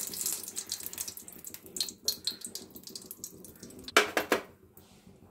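Ghee melting in hot oil in a stainless-steel pan, sizzling and crackling, densest at first and thinning out, with a louder burst of spitting about four seconds in.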